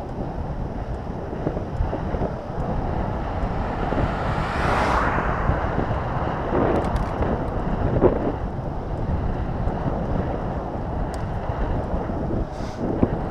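Wind buffeting an action camera's microphone while it moves along a road: a steady rush of low noise, with a brief swell about five seconds in.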